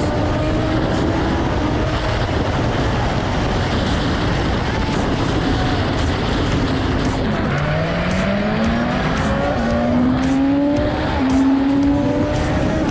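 BMW S1000RR inline-four sport-bike engine at high revs at highway speed under a heavy rush of wind noise. The engine pitch holds fairly level, falls away sharply about halfway through as the throttle comes off, then climbs again in several rising steps as the bike accelerates through the gears.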